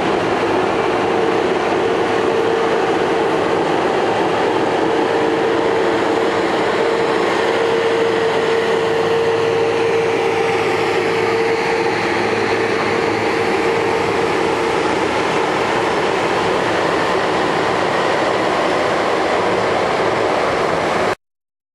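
Heavy harvesting machinery running steadily: a loud, even mechanical noise with a steady whine, cutting off abruptly near the end.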